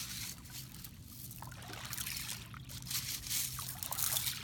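Shallow water trickling and splashing in small irregular bursts, over a steady low hum.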